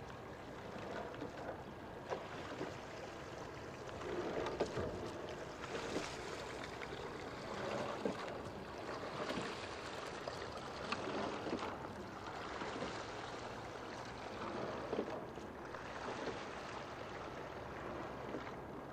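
Oar and kayak paddle blades dipping and splashing in calm water, a surge of splashing every second or two as the strokes pass.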